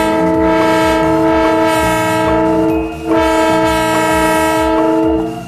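Odong-odong tour train's multi-tone, train-style horn sounding a long held chord, breaking off briefly about three seconds in and then sounding a second long blast, over a low rumble.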